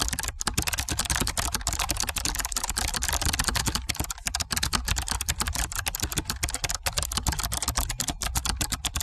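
Rapid, continuous computer-keyboard typing clicks: a typing sound effect that keeps pace with text being typed out.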